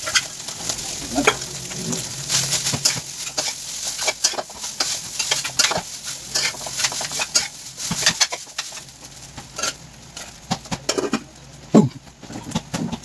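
Food sizzling in a wok on a gas burner while it is stirred, the utensil clicking and scraping against the pan many times. The sizzle thins out about two-thirds of the way through, leaving scattered clinks.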